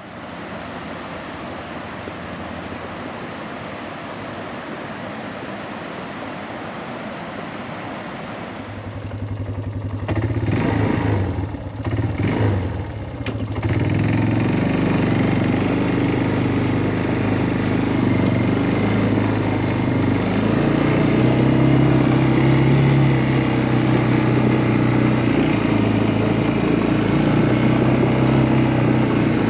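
Engine of a small off-road vehicle running as it is driven: quieter at first, louder and uneven from about ten seconds in, then running louder and steadily.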